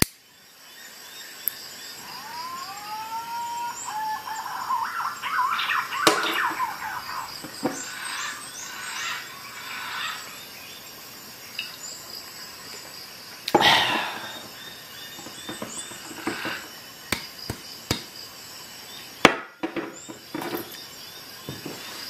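A natural wine cork squeaking as it is twisted off a Leatherman Juice XE6 multitool's corkscrew and pushed back into a glass wine bottle, with several sharp knocks as the bottle and the tool are handled.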